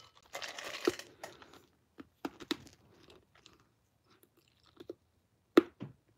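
A person chewing and crunching ice cubes: a crunching stretch in the first second, then a handful of sharp, irregularly spaced crunches.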